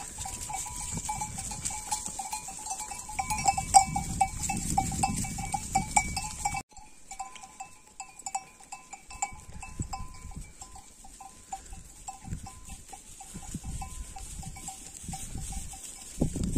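Bells on a grazing flock of sheep clinking and ringing. The sound drops abruptly about six and a half seconds in, then the bells carry on more softly.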